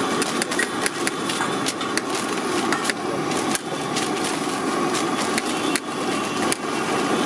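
Steady engine-like background hum, with frequent sharp crackles and rustles of newspaper being folded around a sandwich.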